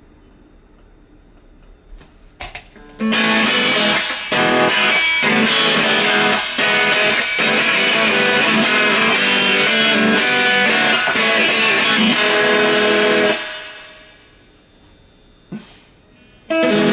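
Electric guitar played through a Marshall Valvestate 80V combo amp. After about three seconds of faint amp hum and a few clicks, loud chords ring for about ten seconds with brief breaks, then die away. Playing starts again just before the end, a little out of tune by the player's own account.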